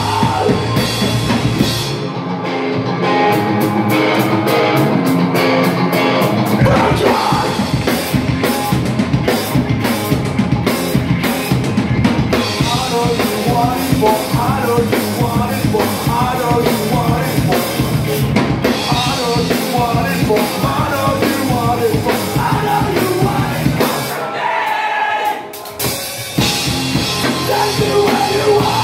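Live rock band playing: drum kit, electric guitar and bass. The lowest notes drop out a couple of seconds in and the full band comes back in about six seconds later; near the end the music stops almost dead for a moment, then the band crashes back in.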